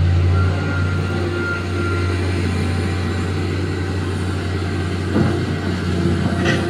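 Large BEML mining hydraulic excavator's diesel engine running with a steady low drone as the machine swings and lowers its bucket. From about five seconds in, rock clatters and scrapes as the bucket digs into the broken rock.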